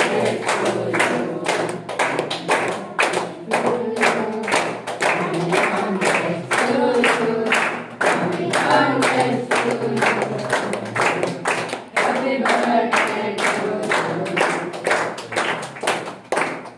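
A group of children and adults singing a birthday song together while clapping along in a steady beat, about three claps a second.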